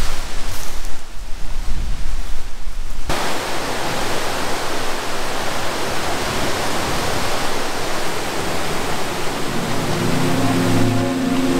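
Steady rushing of a creek cascading over a small waterfall. A low rumble sits under it for the first three seconds, then the water noise turns suddenly fuller and more even.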